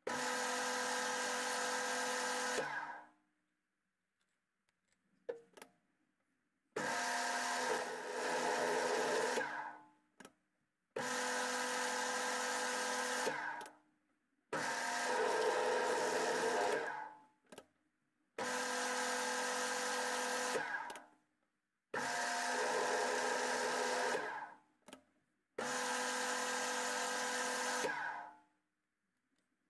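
Paulimot PM2500 lathe running in seven short bursts of about three seconds each, each starting sharply and winding down into a silent gap, as the threading insert takes shallow passes cutting an M12 thread in tough steel. Brief clicks sound in some of the gaps.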